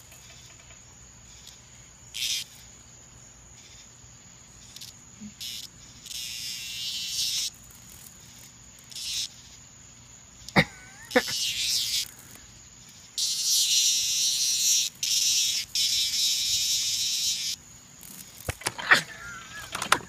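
Cicada giving its harsh buzzing distress call in separate bursts, the longest lasting about four seconds, while the puppy handles it. One sharp, brief high squeak about halfway through, with a few more short sounds near the end.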